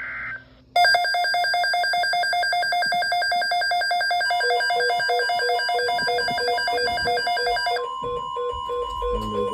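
Electronic emergency-alert tones opening a weather alert. A short buzzy burst comes first, then a fast-pulsing alarm of several tones. A lower beeping joins about four seconds in, and near the end the alarm gives way to one steady tone with the beeping under it.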